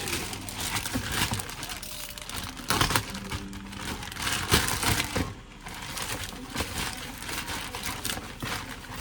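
Plastic or paper packaging crinkling and rustling as it is handled, in irregular bursts with a few sharper crackles.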